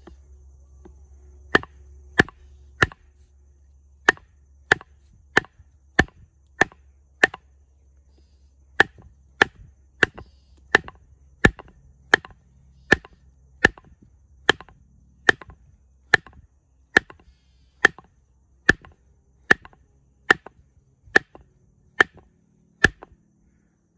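Wooden baton striking the spine of an L.T. Wright Forest Trail knife in A2 steel, hammering the blade through a log. About 28 sharp wooden whacks come roughly one every two-thirds of a second, in runs broken by short pauses about three and eight seconds in.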